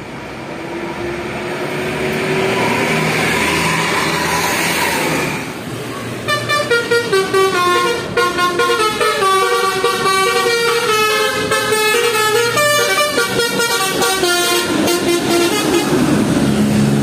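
A bus passing with its engine and tyre noise rising, then, about six seconds in, its telolet horn (a set of multi-tone air horns) plays a quick tune of short, changing notes for about nine seconds.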